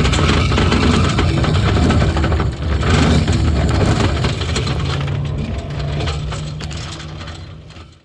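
A heavy engine running steadily, with scattered clicks and knocks over it, fading out over the last couple of seconds.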